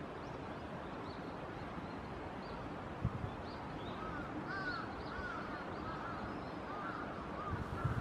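Shallow stream water running steadily, with a soft thump about three seconds in. From about halfway in, a bird calls over it repeatedly in short, clear, arched notes, a few a second.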